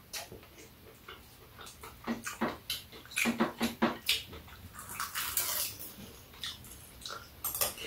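Eating sounds at close range: chewing and lip-smacking, with short clicks of a spoon and chopsticks against bowls, and a brief denser noisy stretch about five seconds in.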